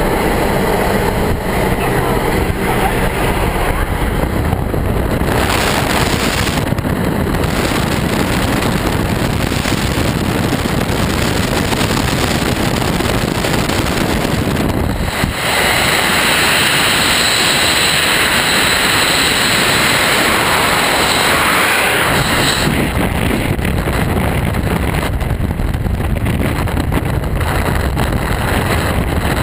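Loud, steady rush of wind and aircraft engine noise through the open door of a jump plane in flight. About halfway through it changes abruptly as the skydivers exit, and wind blasts across the camera microphone in freefall.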